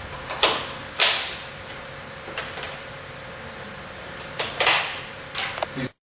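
Plastic fastener covers of a vinyl railing being pressed onto their brackets, giving a series of sharp snaps and clicks as each cover locks on over the screws; the loudest snap comes about a second in, with a cluster of smaller clicks near the end.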